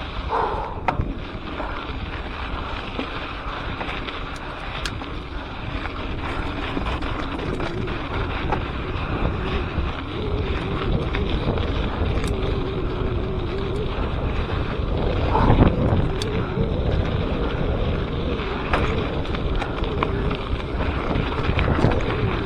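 Wind buffeting an action camera's microphone while a mountain bike rolls along a dirt trail, with tyre noise and scattered clicks and knocks from the bike. There is one louder bump about two-thirds of the way through.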